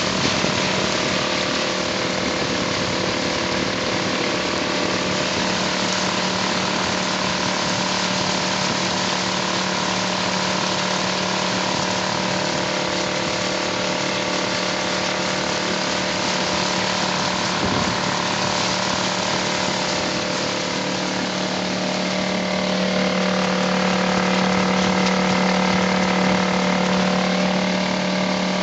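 Suzuki 2.5 hp outboard motor running steadily while the boat is under way, with water rushing past the hull. The engine note grows slightly louder about three-quarters of the way through.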